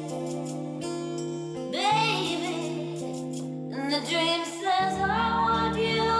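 A slow song: a woman singing long drawn-out notes over sustained keyboard chords, with a deep bass coming in about five seconds in.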